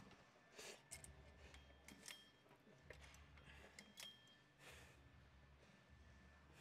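Near silence: faint room hum with a few light clicks and ticks.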